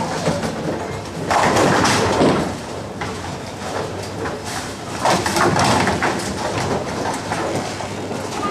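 Bowling hall din: balls rolling down the lanes and pins clattering, in two louder swells, one after about a second and one about five seconds in.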